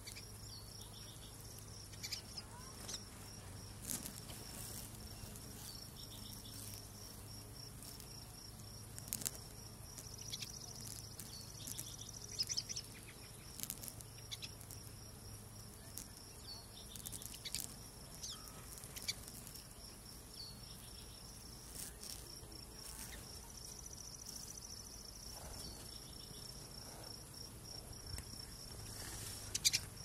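A steady, fast-pulsing insect trill like a cricket's, with short bird chirps scattered throughout.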